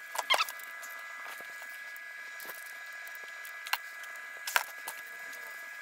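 Scattered light clicks and knocks of a ratchet wrench and hand tools on the timing belt tensioner of a Renault 1.5 dCi engine, about six in all, over a steady faint high-pitched hum.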